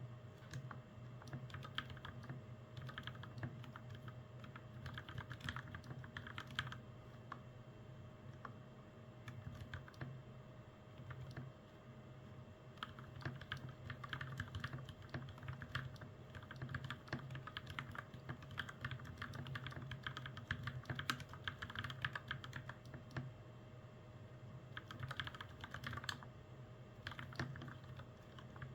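Mechanical keyboard being typed on steadily, a continuous run of key clacks with only brief pauses.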